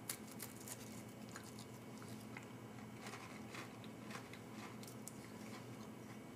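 Faint close-up chewing of a dry MRE vegetable cracker with jalapeño cheese spread, small irregular crunches a few times a second.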